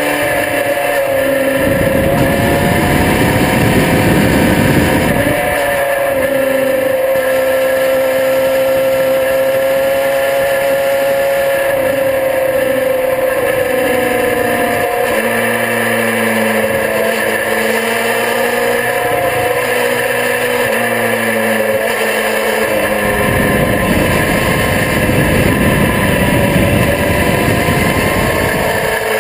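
Sport motorcycle engine running hard at high revs on a race track, its note holding steady and sagging slowly through the middle. Heavy wind rush on the microphone swells in the first few seconds and again near the end.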